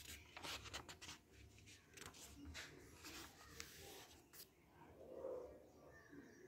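Sheets of a printed paper booklet rustling and crinkling as a hand turns the page over, a run of quick papery strokes that stops about four and a half seconds in.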